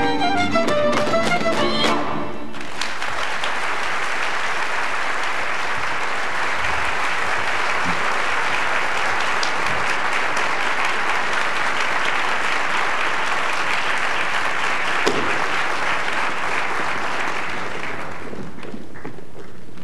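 Fiddle-led folk dance music stops about two seconds in. A theatre audience then applauds steadily, and the applause fades out near the end.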